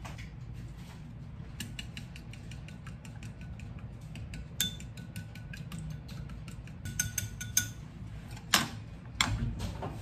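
Chopsticks beating eggs in a porcelain bowl: quick clicking of the sticks against the bowl's side, with a faint ring from the porcelain. Two louder knocks near the end.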